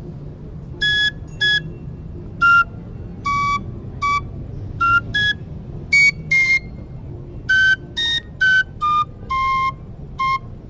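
A high-pitched small flute playing a slow melody of about twenty short, separate notes that step up and down in pitch, with brief gaps between them.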